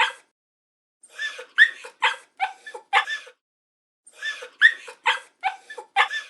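Puppy crying: two runs of short, high whimpering yelps, each run about two seconds long with six or seven cries, the same run heard twice about a second apart.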